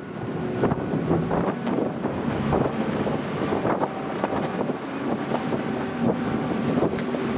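Wind buffeting the microphone on board a car ferry, over the steady hum of the ship.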